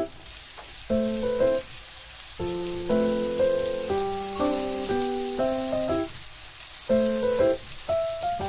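Background music of light melodic chords, with the steady crackling sizzle of food frying in a pan underneath.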